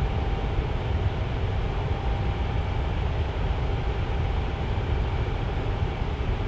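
Tower fan running steadily: an even rushing noise, heaviest in the low end, with a faint steady hum.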